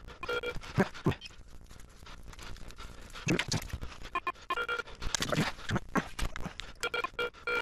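Metal detector giving short groups of steady beeps three times, signalling a buried metal target, between short noisy bursts.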